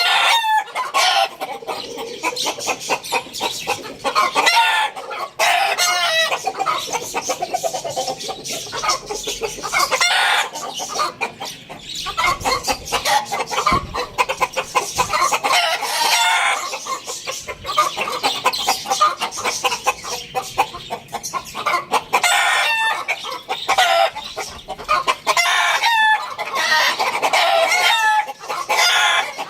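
A flock of chickens clucking over one another, with roosters crowing now and then.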